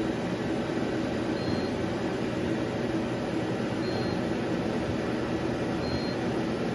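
2006 Okuma ES-L8 CNC turning center running under power with a steady, even hum. A short high beep sounds three times, roughly every two seconds.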